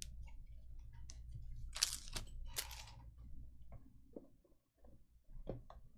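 Trading cards and their foil pack wrappers being handled: scattered light clicks and two short crinkly rustles about two seconds in, over a low steady hum.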